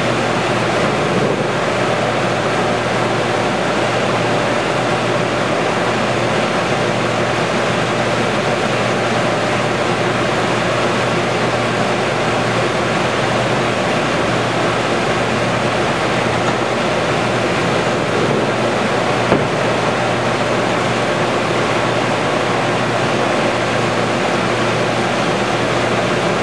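Baby Blu lumber coater running: a loud, steady machine noise with a constant hum, with one brief click about two-thirds through.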